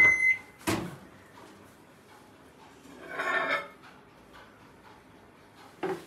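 Microwave oven beeping once as a button on its control panel is pressed, followed by a sharp click under a second in, then quieter knocks and handling noises, with another click near the end.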